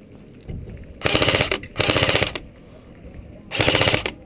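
Airsoft gun firing in three rapid bursts: one about a second in, a second right after it, and a third near the end.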